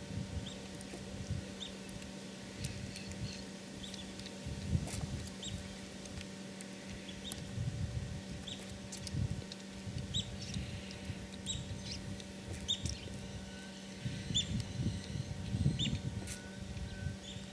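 Bird calling in short, high notes repeated about once a second, over a steady low hum and irregular low rumbles.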